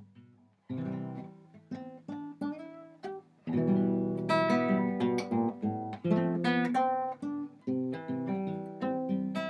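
Acoustic guitar played solo between sung verses: a few separate picked notes and chords at first, then fuller, louder playing from about a third of the way in.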